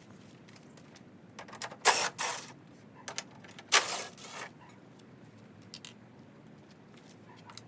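Two short scraping clunks, with a few light clicks between, as a Ford F-150 headlight assembly is worked loose and pulled out of its mounting.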